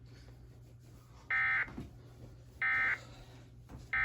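Emergency Alert System end-of-message (EOM) SAME data signal: three short, identical warbling digital bursts about a second apart, marking the end of the alert.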